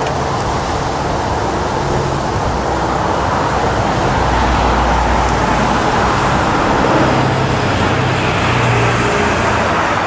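Steady roar of engine noise with a low hum underneath, swelling a little in the middle.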